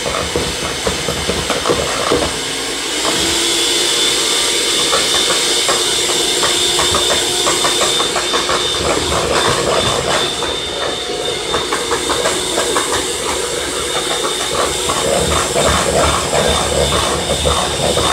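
Electric hand mixer running steadily in a bowl, its beaters rattling as they break up cream cheese in beaten eggs. The motor's pitch steps up about three seconds in.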